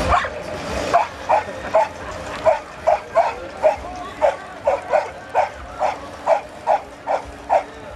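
A dock-diving dog barking in a fast, regular series, about two to three short barks a second, starting about a second in.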